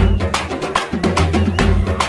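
Music with a fast drum beat and a heavy pulsing bass.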